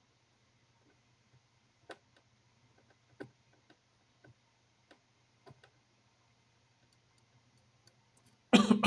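Faint, scattered taps and clicks of small tools being handled on a workbench over a low steady hum, then a short, much louder clatter near the end.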